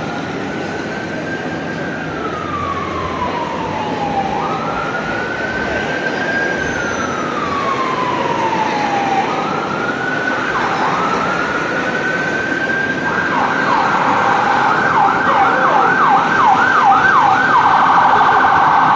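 Emergency vehicle siren wailing, its pitch rising quickly and falling slowly over several seconds. About two-thirds of the way through it switches to a fast yelp of about two cycles a second, growing louder throughout over steady city traffic noise.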